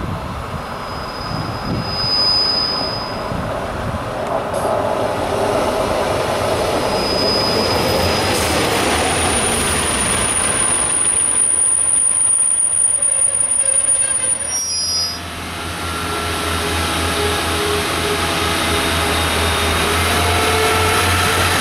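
A Pacer diesel railbus (Class 142) and its coaches running along curved track, with thin high-pitched wheel squeal over the rumble and clatter of the wheels. About two-thirds of the way in the sound dips and gives way to a steady low diesel drone under the rail noise.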